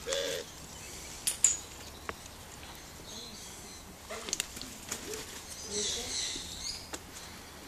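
Scattered sharp clicks and taps, the loudest about a second and a half in. There is a brief faint voice-like sound at the start and a short burst of high chirping near the end.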